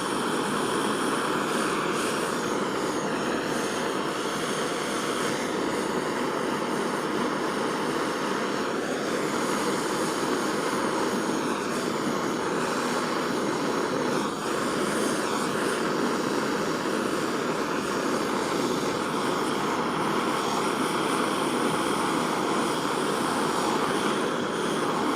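Jeweller's gas soldering torch burning with a steady hiss, holding heat on a silver setting to make the medium solder flow along the seam.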